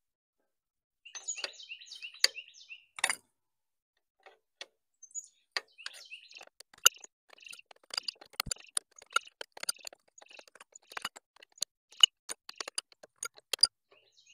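Small birds chirping in quick repeated series, mixed with many irregular sharp clicks and knocks, the loudest sounds here.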